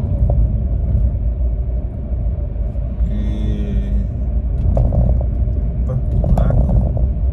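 Steady low rumble of a car driving, road and engine noise heard from inside the cabin, with a few faint knocks.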